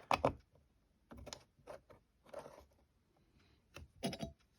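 Antique Milner's lever safe lock being worked by hand: a handful of short metallic clicks and clacks from its mechanism, about a second apart, running smoothly.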